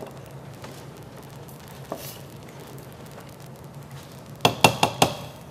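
Chicken biryani being stirred in a metal cooking pot, faint, then a little after four seconds in a quick run of about five sharp clinks of utensil on pot.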